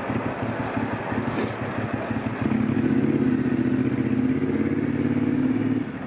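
Triumph Scrambler's parallel-twin engine running through a TEC stainless steel high-level exhaust with the baffle still fitted. It idles at first, then about two and a half seconds in the note steps up, louder and steady, as the bike pulls away. The note drops back just before the end.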